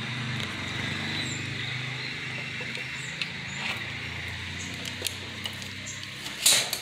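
A spin-on motorcycle oil filter being turned by hand, giving a few light clicks and scrapes over a steady low hum and hiss, with a sharper clack near the end.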